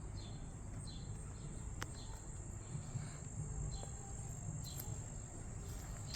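Outdoor ambience of insects, crickets or cicadas, keeping up a steady high-pitched trill, with short bird chirps about once a second and a low background rumble.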